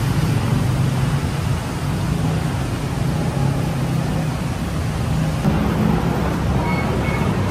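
Steady low rumble and hum of a moving vehicle, with two short high beeps near the end.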